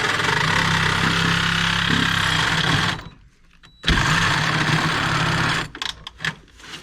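Reciprocating saw (Sawzall) run in two bursts of about three and two seconds, the motor running steady under a harsh rasp as the blade cuts away an old sheet-metal strip.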